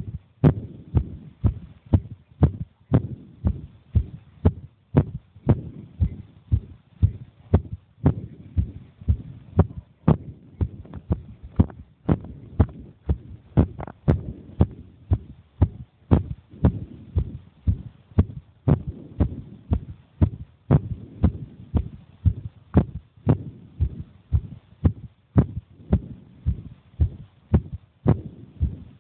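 A child's heartbeat, recorded close up: even, low thumps at a steady rhythm of roughly one and a half beats a second.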